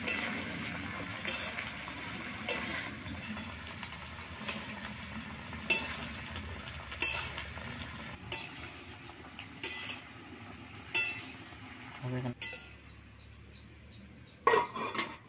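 Metal spatula knocking and scraping against an aluminium wok as yardlong beans and potatoes are stir-fried, a sharp clink roughly every second. Near the end a metal lid is set down on the pan with a loud double clank, the loudest sound.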